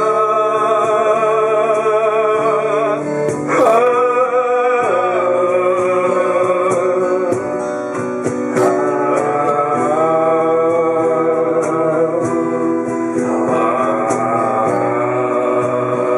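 A live acoustic band song: strummed acoustic guitars under singing. The voice holds long, wavering notes, with a new phrase starting about every five seconds.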